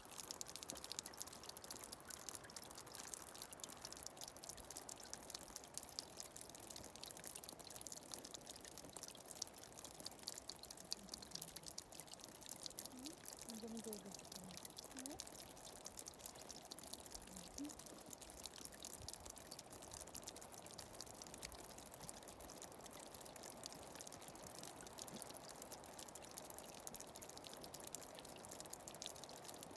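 Water trickling and dripping: a steady faint wash of running water with a dense patter of tiny drips.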